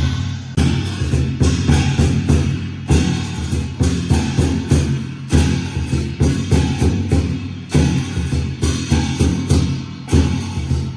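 Loud Shandong yangge accompaniment: drums and cymbals beat a steady rhythm of about two strikes a second over a sustained low tone.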